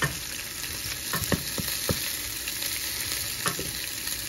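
Chopped garlic sizzling in hot olive oil in a pan among seared oxtails, stirred with a wooden spatula that knocks lightly against the pan several times.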